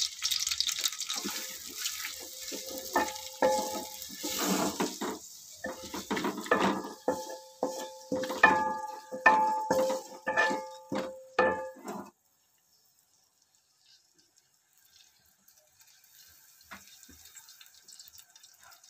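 A wooden spoon knocks and scrapes in an aluminium pot of chopped onions in ghee, and the pot gives a ringing tone after many of the knocks. About twelve seconds in, the sound cuts off suddenly, leaving only faint sounds.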